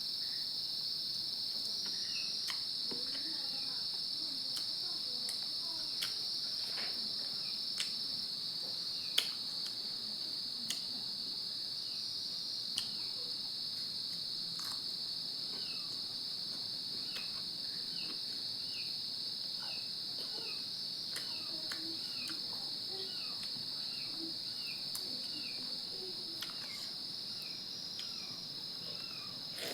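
Steady, continuous chirring of crickets, with scattered faint clicks and smacks of someone eating and chewing over it.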